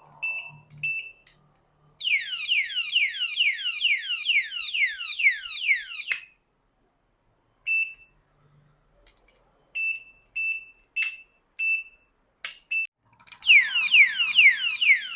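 Anti-theft alarm padlock set off by being handled, its internal motion switch triggering it. It gives a few short high beeps, then a loud siren of rapid falling sweeps, about four a second, that cuts off suddenly with a click. After a pause come more single beeps and clicks, and the siren starts again near the end.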